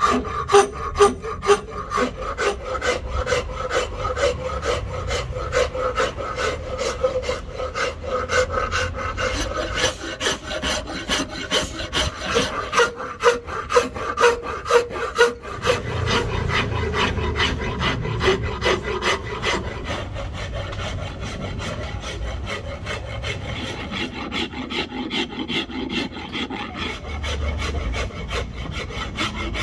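Rosewood axe handle being shaped by hand, a tool scraping across the wood in quick repeated strokes that run together into a steadier scrape in the second half.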